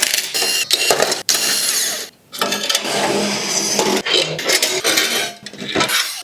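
Hardware being handled: a dense run of clicks, knocks and clattering of plastic and metal as the stock cooling fans are pulled out of a crypto miner's metal case, with a short pause about two seconds in.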